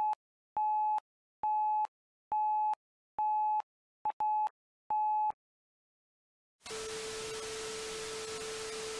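Electronic beeps of a mock emergency alert broadcast: a single mid-pitched tone pulsing on and off about once a second, six or seven times. After a short silence, a steady lower tone comes in over loud static hiss about two-thirds of the way through.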